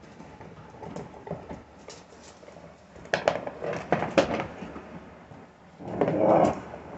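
Puppies scuffling over chews on a hard floor, with a run of sharp clicks and knocks about three seconds in. Near the end comes a short, louder animal sound.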